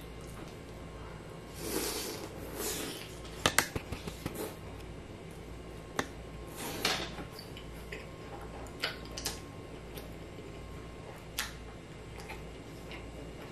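Close-miked eating sounds: chewing with wet lip smacks and sharp mouth clicks, coming in short irregular bursts over a low steady hum.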